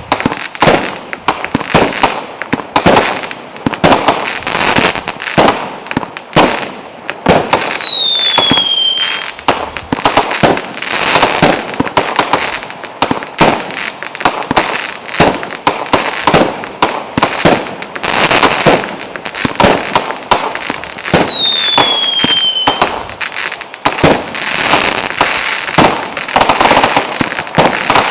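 A 100-shot firework cake ('Orange General') firing in quick succession: a steady, uneven stream of launch thumps and aerial bangs, several a second. A falling whistle cuts through twice, about a third of the way in and again past the middle.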